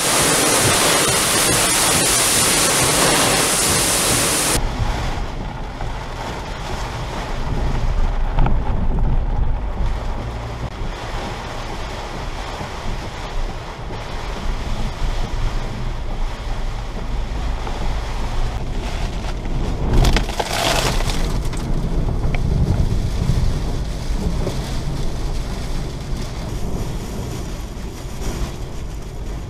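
Storm wind and heavy rain: a loud wind hiss on the microphone for the first four or five seconds, then a lower rush of rain and wind against a vehicle over a steady low rumble, with one brief louder burst about twenty seconds in.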